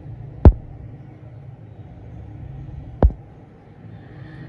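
Two short, dull thumps about two and a half seconds apart, over a steady low rumble.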